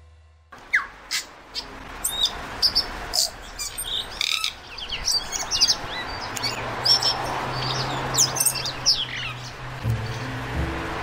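A tui singing: a varied run of sharp chirps, clicks and quick sliding whistles. Low background music comes in under it and grows near the end.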